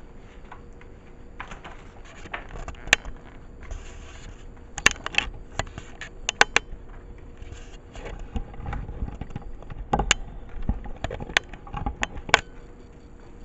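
Handling noises: irregular sharp taps and knocks, about half a dozen louder ones, over bouts of rustling and scraping.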